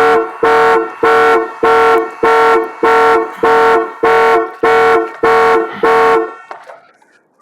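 A 2008 Buick Lucerne's horn honking in an even, rapid series of about eleven blasts, the car alarm sounding. It stops about six seconds in.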